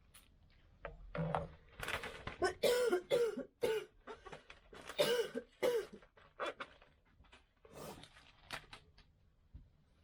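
A person coughing in a fit: a run of harsh coughs in quick succession, followed by a few lighter, shorter coughs that trail off.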